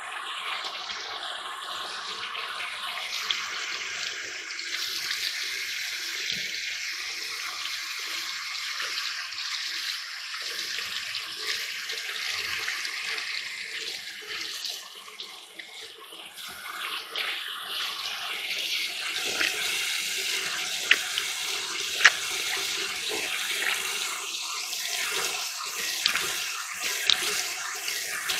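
Kitchen tap running into a sink while someone washes their face, the water splashing. The flow eases for a moment about halfway through, and a few sharp knocks come near the end.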